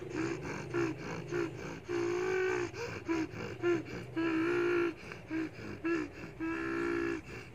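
A child beatboxing with the mouth: short hummed notes in a steady rhythm, three longer held notes, and sharp mouth clicks between them.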